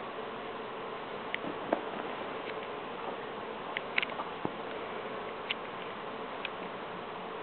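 A handful of light taps and clicks from kittens at play, scattered over a steady buzzing hiss.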